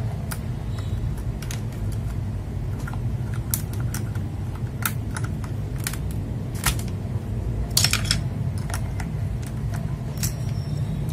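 Irregular sharp plastic clicks and taps, a few a second, as PBT keycaps are pulled off and pressed onto a mechanical keyboard's switches, with a louder cluster of clicks about eight seconds in. A steady low hum runs underneath.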